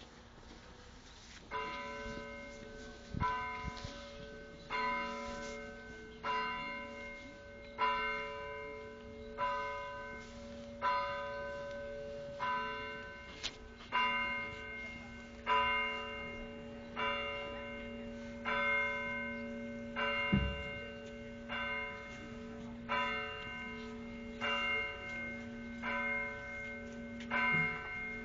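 Bells ringing, struck about once every second and a half from about a second and a half in, each stroke ringing out and fading. A low hum keeps sounding between the strokes, and there is a single dull knock about two-thirds of the way through.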